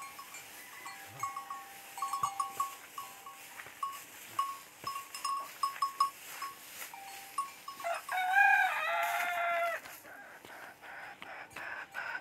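Short high notes at one pitch repeat about twice a second for the first seven seconds. About eight seconds in comes a loud, drawn-out goat bleat lasting about two seconds.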